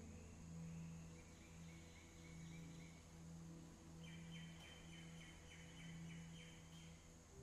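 Near silence: a low steady hum of room tone, with faint high chirping trills, several short runs of rapid chirps in a row.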